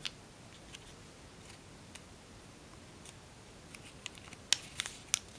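Tissue-foil paper crackling between the fingers as a fold is creased: a few faint ticks, then a cluster of sharp crinkles about four seconds in.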